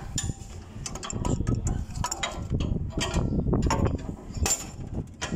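Irregular metal clinks and knocks as a forklift's broken exhaust pipe and its torn mounting bracket are handled and moved by hand.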